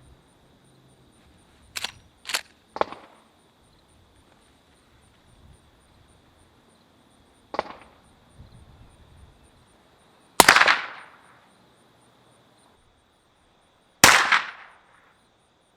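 Suppressed .44 Magnum shots from a Marlin 1894 lever-action carbine fitted with a Griffin Armament Resistance 45 suppressor, heard from downrange: two loud sharp pops about three and a half seconds apart, each with a short fading tail. Quieter sharp cracks come earlier: three in quick succession about two seconds in, and one about halfway through.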